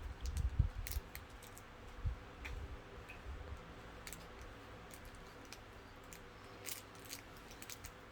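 Scattered light clicks and taps of a small plastic toy being handled, with a few soft low thumps in the first second or so and a short cluster of clicks near the end.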